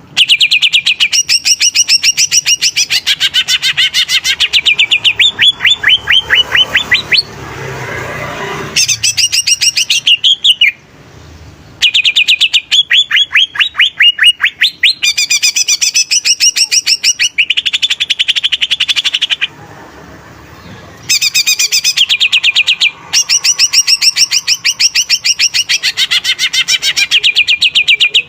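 Green leafbird (cucak ijo) singing loudly in long runs of rapid, sharp repeated notes, broken by short pauses.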